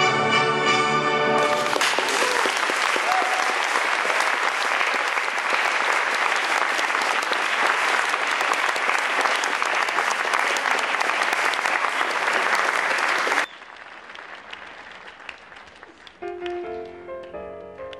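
Audience applauding loudly for a dance performance, following music that ends about a second and a half in; the applause cuts off abruptly about 13 seconds in. Quiet piano music begins near the end.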